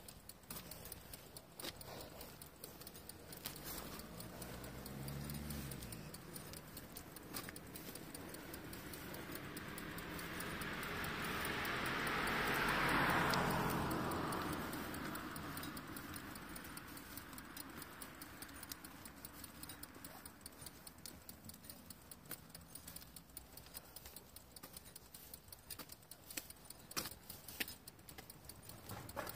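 Continuous light rattling and clicking from a bicycle being ridden, with a passing vehicle that swells to its loudest about halfway through and then fades.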